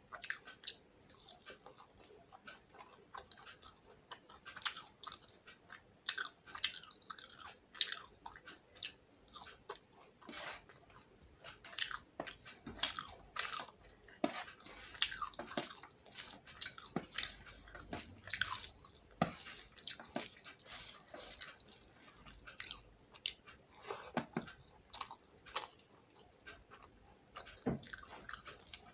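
Close-up chewing and mouth sounds of a person eating fish with rice: frequent, irregular wet clicks and smacks of lips and tongue.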